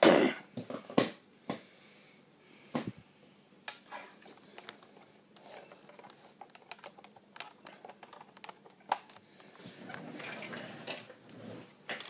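Handling noise from a laptop and its power lead being plugged in: scattered clicks and knocks, the loudest in the first three seconds, then lighter taps and a rustle near the end.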